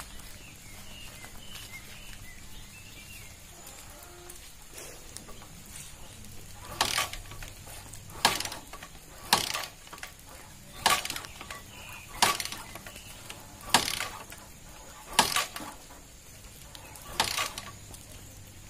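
Bajaj Discover 100's single-cylinder four-stroke engine being kick-started without catching: about eight kicks starting some seven seconds in, each a sharp clank of the kick lever with a brief turn-over, roughly one every second and a half. The engine won't fire because of water in the carburettor.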